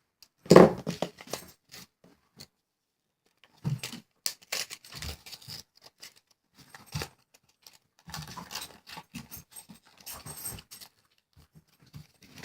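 Scattered clicks, scrapes and crinkles of a new fidget spinner being cut and pulled out of its plastic packaging, with a louder knock about half a second in.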